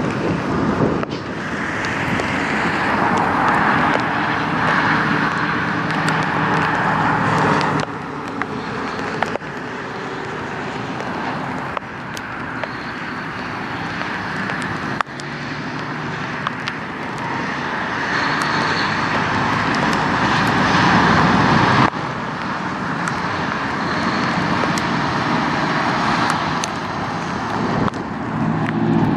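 Diesel semi truck, a Volvo VNL tractor with a loaded dry-van trailer, accelerating away and pulling up through the gears: the engine note builds, then drops off sharply at each shift, three times.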